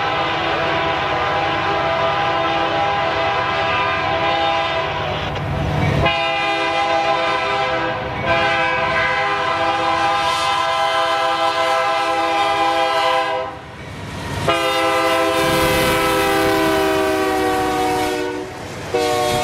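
Locomotive air horn sounding a steady chord in several long blasts with short breaks between them, the last blast sagging slightly in pitch as the locomotive passes. Under it, the low rumble of a passing freight train.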